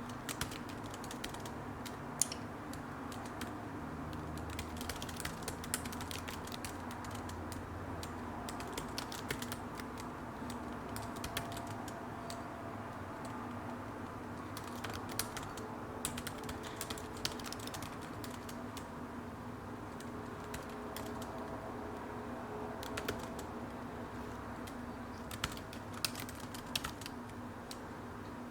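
Typing on a computer keyboard: irregular runs of key clicks with short pauses between them, over a steady low background hum.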